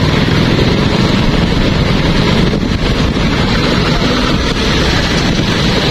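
Steady wind rush and rumble on the microphone of a moving motorcycle in city traffic, with vehicle engine noise underneath.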